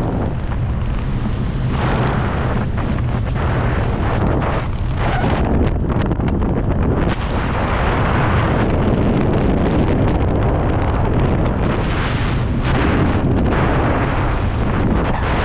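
Steady, loud wind rushing and buffeting over the microphone as a skydiver flies under an open parachute canopy, a deep rumble that swells and eases slightly without stopping.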